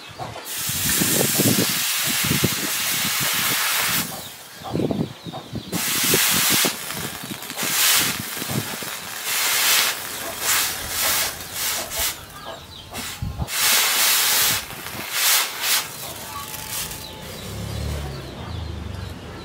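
Hot leaf-spring steel knife blade quenched in water to harden it. A long sizzling hiss as it first goes in, then a run of shorter hissing bursts as it is worked and dipped again, thinning out near the end.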